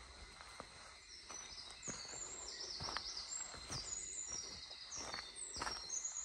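Footsteps on a dirt forest trail, about one a second. From about a second in, a high-pitched call repeats over and over, each phrase stepping down in pitch.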